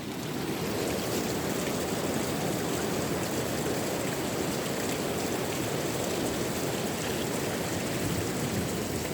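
Steady rush of running water, splashing without break.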